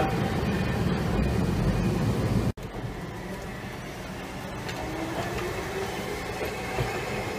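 Hankai Tramway streetcars running past close by on street track: a low rumble of wheels and motors that cuts off abruptly about two and a half seconds in, then a second tram passing more quietly with a faint whine.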